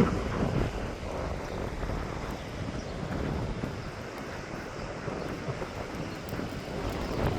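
Strong gusty wind buffeting the microphone: a low, noisy rumble that eases after the first second and picks up again near the end.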